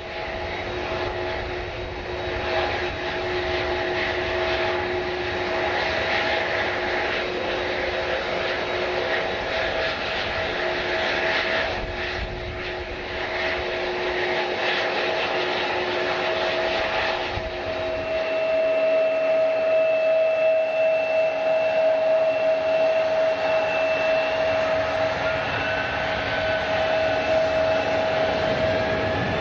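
Jet airliner engines running with a steady whine over a rushing noise. A little past halfway the low rumble drops away and a stronger, steadier whine takes over, with a faint rising tone near the end.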